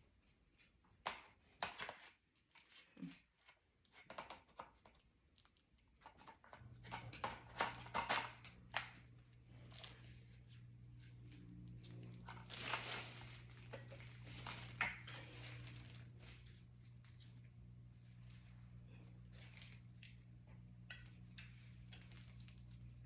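Packaging and plastic parts being handled: crinkling, with irregular clicks and knocks as the battery pack and chainsaw are fitted together. A steady low hum comes in about a quarter of the way through and carries on.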